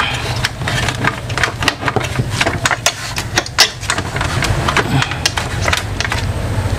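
Irregular plastic clicks and taps from the Epson L3210 printer's scanner-unit housing being handled and lowered by hand, over a steady low hum.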